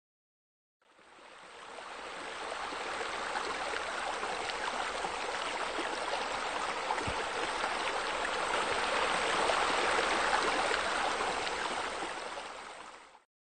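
Steady running, splashing water that fades in about a second in and fades out near the end.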